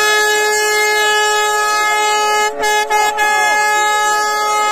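An air horn held on one long, steady, piercing note, cutting out briefly twice about two and a half to three seconds in, over faint shouting from the crowd.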